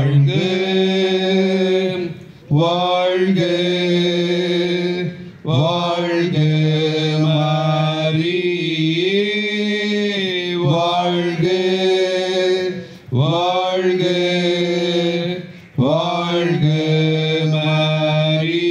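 Rosary prayers chanted by a voice on a near-steady pitch, in phrases of two to three seconds with short breaks for breath between them.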